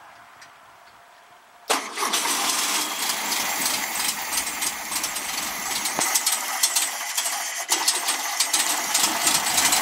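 Air-cooled Volkswagen flat-four engine, its exhaust fitted with a baffle, starting cold: it catches suddenly about two seconds in and then runs steadily.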